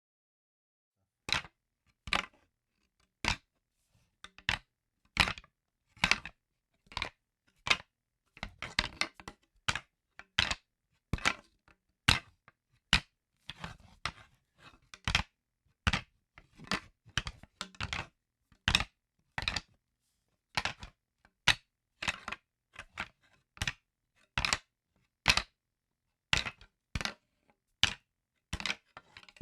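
Wooden sticks giving a long series of short, sharp wooden clacks, roughly one a second, now and then in quick clusters of several hits.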